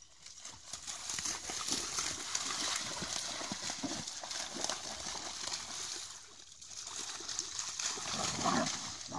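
Water splashing and sloshing as two dogs, a German Shepherd and an American Staffordshire Terrier, run and wrestle through shallow water. The splashing eases briefly a little past the middle, then picks up again.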